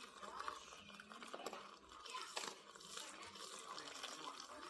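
Liquid being poured or stirred, with small drips and bubbling sounds and a few sharp clicks.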